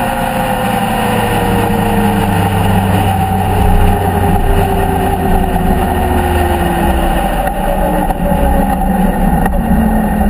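Motorcycle engine heard from on board over steady wind noise, its pitch falling smoothly for about seven seconds as the bike slows on a closed throttle; near the end the engine note drops to a lower pitch.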